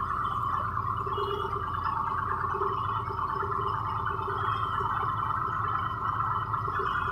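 Heavy rain falling steadily, an even, continuous rushing noise with no breaks.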